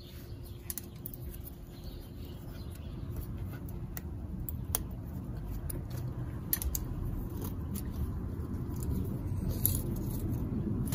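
A low rumble that grows slowly louder, with scattered light metallic clicks and taps from hand work on the engine around the flywheel puller.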